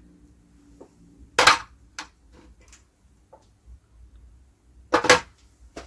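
Small metal parts of a stripped-down espresso machine being handled: two loud, sharp knocks about three and a half seconds apart, with a few faint clicks between them.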